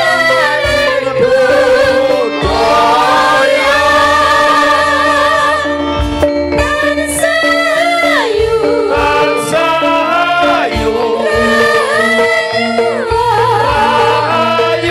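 A group of Javanese sinden, women singers, singing together through microphones over a band, in long held notes with vibrato and sliding pitch, with drum strokes underneath.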